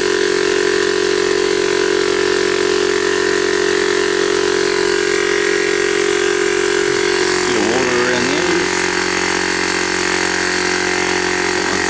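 A 12-volt direct-drive piston air compressor running steadily, its motor and pump giving a constant pitched drone.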